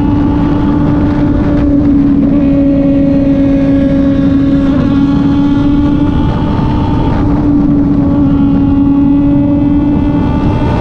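Kove 450RR single-cylinder motorcycle engine running at a steady cruising speed, its pitch holding nearly level with a slight dip about halfway through, under a heavy low rush of wind noise.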